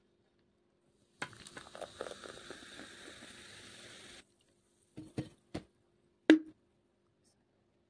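Coca-Cola poured from a plastic bottle into a glass, splashing and fizzing for about three seconds before stopping abruptly. A few short clicks and knocks follow as the glass is handled, one sharp knock louder than the rest near the end.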